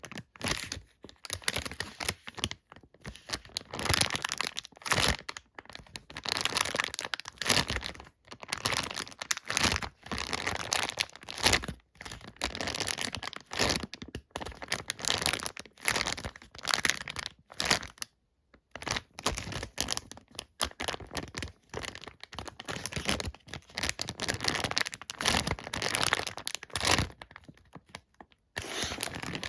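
Plastic packaging crinkling and tearing as squishies are unwrapped and handled, in irregular bursts of rustling with brief pauses.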